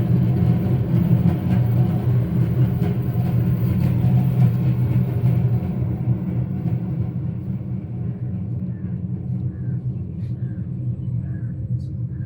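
Thunder-imitating percussion instrument giving a continuous low rumble like rolling thunder, slowly fading.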